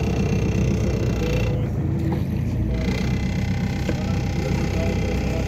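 Steady low rumble of a small motorboat's engine running close by.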